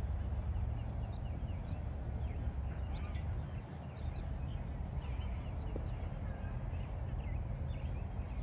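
Outdoor background: a steady low rumble with many short, high bird chirps scattered throughout.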